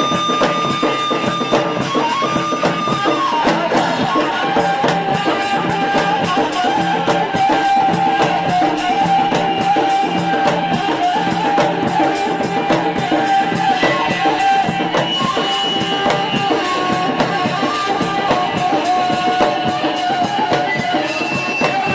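Tunisian rboukh music: a gasba (end-blown reed flute) plays a held, bending melody over a steady beat of double-headed hand drums, amplified through a PA.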